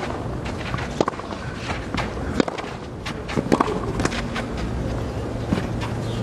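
Tennis rally on a clay court: a series of sharp racket strikes on the ball, with players' footsteps and scuffs on the clay between them, over a low murmur of the crowd.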